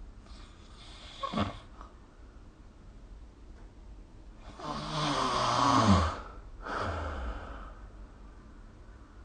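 A sleeping person snoring, recorded by a phone. A brief sharp snort comes about a second and a half in, then a long, loud snore with a falling pitch about halfway through, followed by a shorter breathy one.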